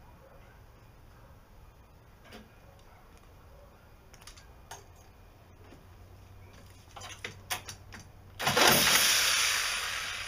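Corded reciprocating saw: a few light clicks as it is handled, then about eight seconds in it is triggered and runs loud, the noise fading away over the last two seconds.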